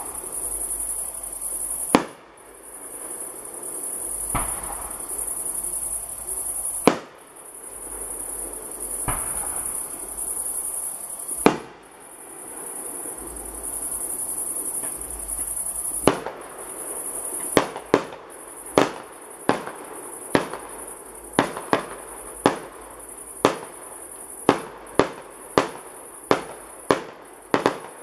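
Aerial fireworks shells bursting with sharp bangs, a few seconds apart at first, then in a quick series of one or two a second from about two-thirds of the way in. Crickets chirp steadily and high-pitched behind them.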